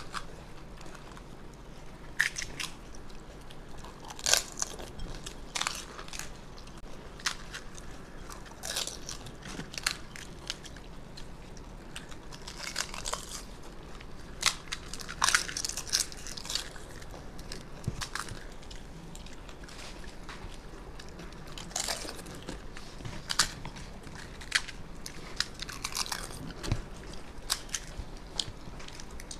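Crisp fried panipuri (fuchka) shells crunching as they are cracked open and bitten, with chewing between, in irregular sharp crackles every second or two.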